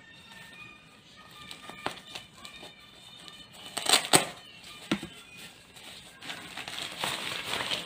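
Plastic wrapping crinkling and rustling as a new folding umbrella is unwrapped by hand. The crinkling is loudest in a burst about four seconds in, with a sharp click about a second later and a longer rustle near the end.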